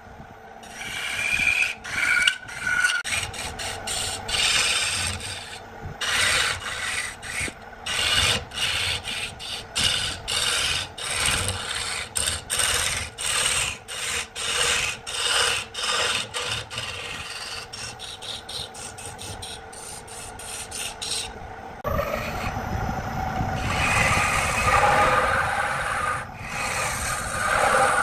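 Gouge cutting cedar spinning on a wood lathe: a run of short scraping strokes that quickens toward the middle. About 22 s in it gives way to a louder, steadier, heavier cut.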